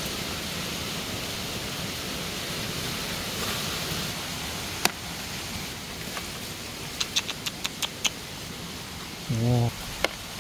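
Steady hiss of outdoor background noise, with a single sharp click about five seconds in and a quick run of about seven clicks around the eight-second mark. A short vocal sound from a man comes just before the end.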